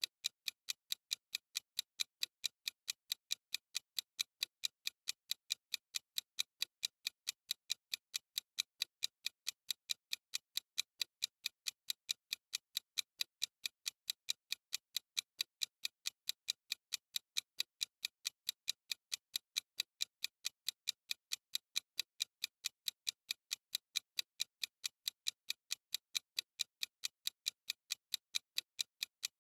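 Clock-ticking sound effect of a countdown timer: crisp, evenly spaced ticks at a steady rate, bright and thin with little low end.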